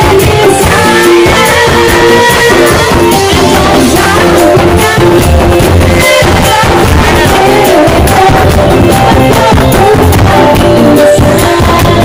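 Live band music played loudly on hand drums and an electronic keyboard, with a singer's voice over it.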